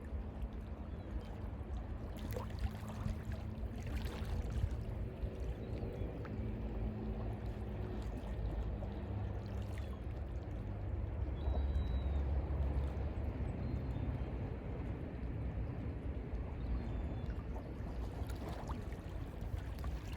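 Mediterranean Sea water washing and lapping against the shore: a steady wash with a deep low rumble underneath.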